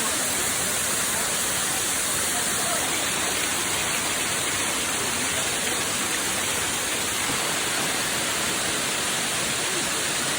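Waterfall's steady rush of falling water, an even hiss that does not change.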